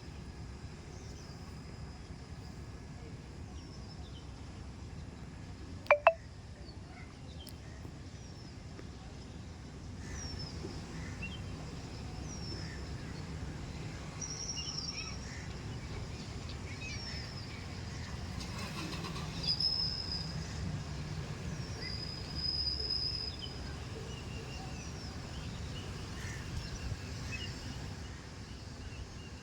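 Birds chirping again and again with short, falling calls over a steady low rumble, with one sharp click about six seconds in.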